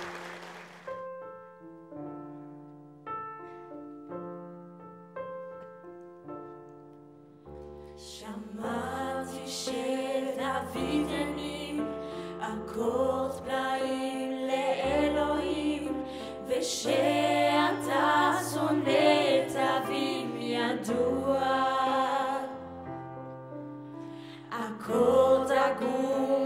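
A Korg digital piano plays a slow introduction of single held notes. About seven seconds in, three female voices join, singing in close harmony over the piano's low chords.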